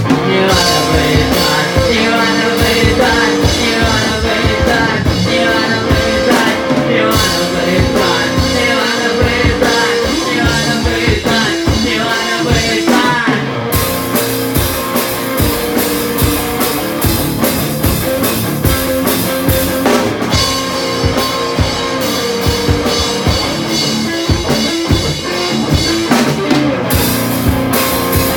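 Rock music: an instrumental passage with drum kit, bass and guitars playing a steady beat.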